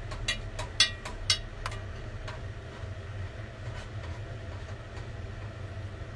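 A utensil clinking and tapping against the pot in a quick run of about eight strokes in the first two seconds or so, as miso is stirred and dissolved in it, then stopping. A steady low hum runs underneath throughout.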